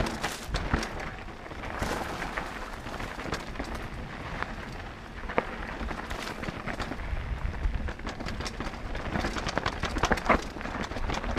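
Mondraker Foxy full-suspension mountain bike descending a rocky dirt singletrack: tyres rolling over loose stones and the bike rattling over bumps, with frequent sharp knocks, one of the loudest near the end. Wind rumbles on the helmet camera's microphone throughout.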